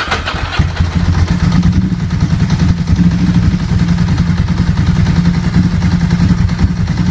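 Motorcycle engine idling with a fast, uneven pulsing beat.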